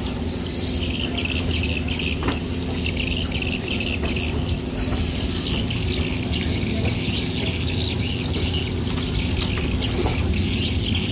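Harbour ambience: many birds chirping continuously over a steady low engine hum.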